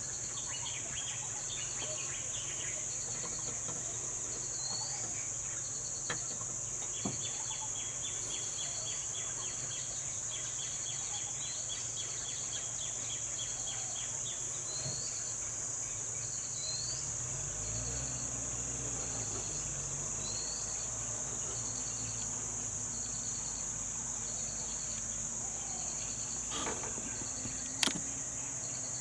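Steady high-pitched drone of insects, with a second insect chirping in even pulses about twice a second and a few bird calls over it. A vehicle engine's low rumble comes in about halfway through, and there is a sharp click near the end.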